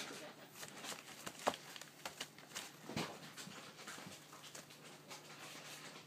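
Baby African grey parrot chicks making short, breathy begging huffs, irregular and mixed with small clicks.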